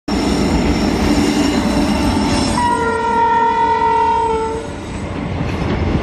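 WAP-7 electric locomotive's twin-tone horn blowing once for about two seconds, over the continuous rumble of the train running on the rails.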